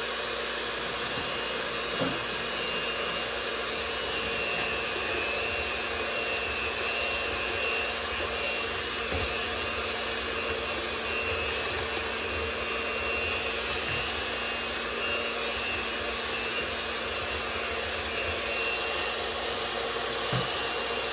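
Hamilton Beach electric hand mixer running steadily, its beaters whirring through a bowl of dessert filling that is being beaten until it is thick like whipped cream.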